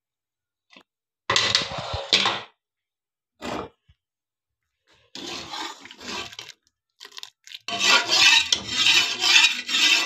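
Spoon stirring and scraping through cooked whole moong dal in an open aluminium pressure cooker, in several separate bursts with short gaps, the longest near the end.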